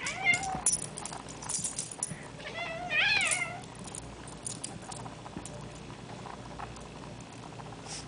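Domestic cat meowing in annoyance at a small dog pestering it: a short meow at the start and a longer, wavering one about three seconds in, with faint light clicks in between.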